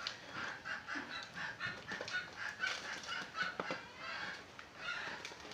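Chickens clucking, a run of short calls about three a second, with small clicks and rustles of packaging being handled.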